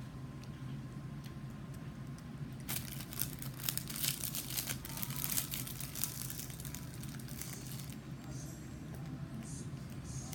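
A Rice Krispies treat being chewed close to the microphone: a run of crackly, crunchy clicks lasting about four seconds, starting a few seconds in, with a few fainter ones near the end, over a steady low hum.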